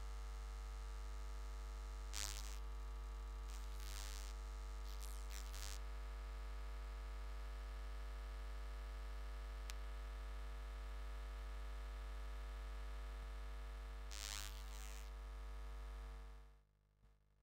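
Steady electrical hum and buzz from the hall's sound system, with a few short bursts of hiss; it cuts off suddenly near the end.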